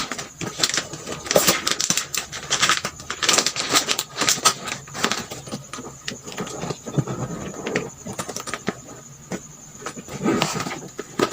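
Rustling, crinkling and small irregular clicks and knocks as items are handled and packed into an emergency kit bag.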